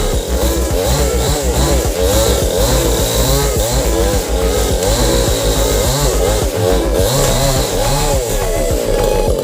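Two-stroke STIHL chainsaw cutting trembesi (rain tree) wood. The engine pitch swells and drops again and again as the chain bites and eases off.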